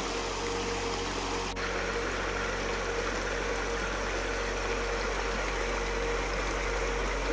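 River water running over stones in a steady rush, with a constant low hum beneath it.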